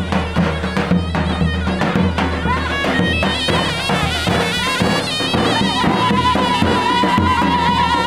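Turkish folk dance music from a davul bass drum beaten with a stick, with a shrill reed wind instrument playing the melody over the strokes. Near the end the pipe holds one long high note.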